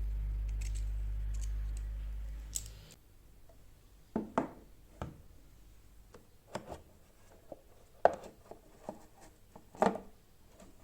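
A low steady hum that cuts off about three seconds in, followed by a handful of separate clicks and knocks from objects being handled.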